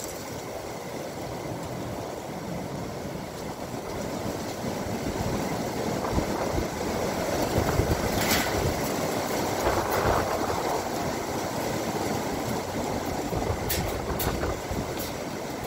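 Strong, gusty high wind rushing over the microphone, building to its strongest gusts around the middle. A few sharp clicks come near the end.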